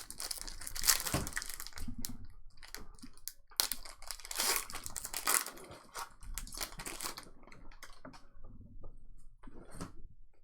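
Trading card packs being handled and opened: wrappers crinkling and tearing and cards clicking and sliding against each other, in irregular spells, busiest in the first second or so and again through the middle, then quieter toward the end.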